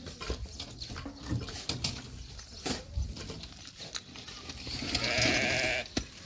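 A farm animal's call: one long, wavering cry lasting about a second, starting about five seconds in, over scattered knocks and clatter.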